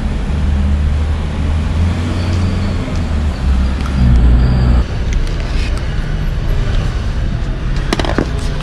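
Street traffic noise. A nearby vehicle's engine runs low and steady, then drops away about five seconds in, leaving general road noise and a brief sharp knock near the end.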